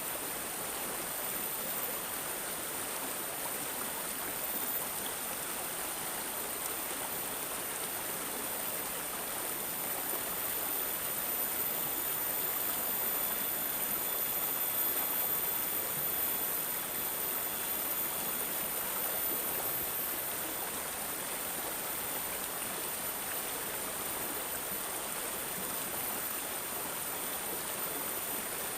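Running water gurgling and trickling steadily and without a break.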